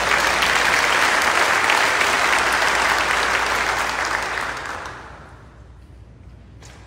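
Audience applauding, fading out about five seconds in.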